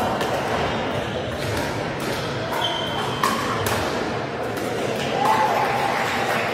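Pickleball paddles striking the hard plastic ball: irregular sharp pocks from rallies on several courts, echoing in a large sports hall over a steady hall hubbub.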